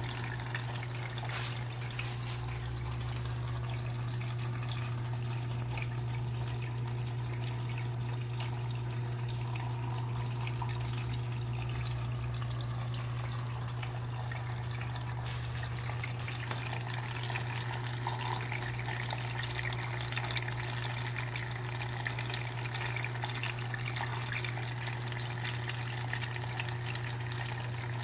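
KMC washing machine with water running and trickling into it, over a steady low hum.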